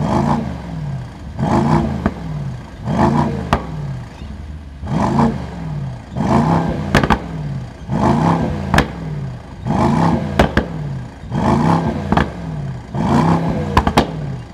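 Mercedes-AMG SL55's 4.0-litre biturbo V8, fitted without a petrol particulate filter, revved in short throttle blips at standstill, about nine in a row, each rising and falling back, with sharp exhaust cracks as the revs drop. Heard from behind the car at the quad tailpipes.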